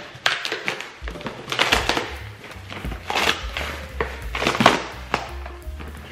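A cardboard shipping box being pulled and torn open by hand, with several separate bursts of ripping and scraping cardboard. Background music plays underneath.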